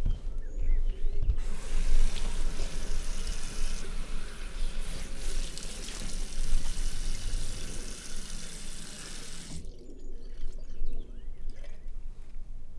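Bathroom sink tap running. The water comes on a little over a second in, runs steadily, and is shut off suddenly near ten seconds in.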